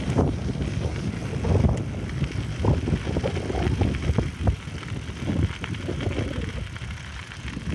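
Wind buffeting the microphone and the rolling rumble of a bicycle on an asphalt path, with irregular low thumps and knocks from the bike.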